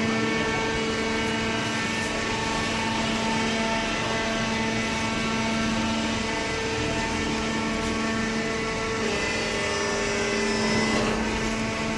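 Hydraulic cardboard baler running: its motor and hydraulic pump give a steady, even-pitched hum. A few higher tones shift slightly near the end.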